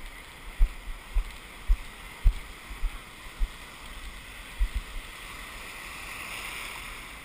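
Breaking surf and foaming wave wash hissing in the shallows, swelling louder about five seconds in as a wave rushes past. Irregular deep thumps, a dozen or so in the first five seconds, sound over it.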